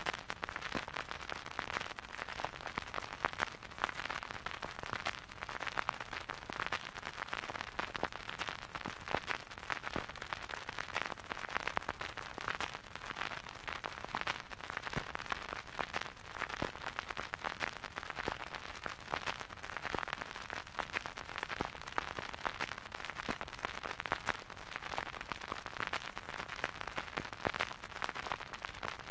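Vinyl record surface noise under a turntable stylus: a steady, dense crackle of small clicks and pops over a light hiss, with no music playing.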